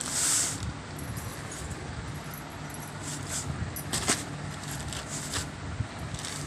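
Plastic wrapping crinkling and rustling as a folded saree is handled, in short irregular crackles, with a louder rustle right at the start. A low steady hum runs underneath.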